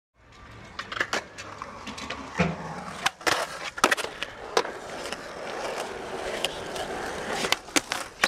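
Skateboard wheels rolling on smooth concrete with a steady hum, broken by a string of sharp clacks as the board is popped into tricks and lands.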